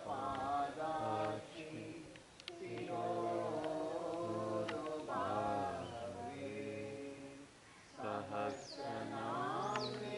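Voices chanting a Sanskrit prayer in slow, drawn-out sung phrases, broken by short pauses about two and seven seconds in.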